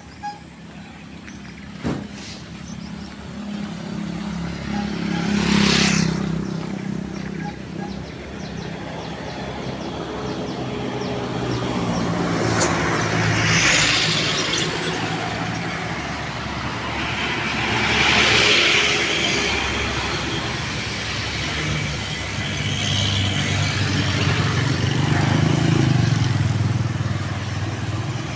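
Motor vehicle engine running with road noise, swelling and fading about four times.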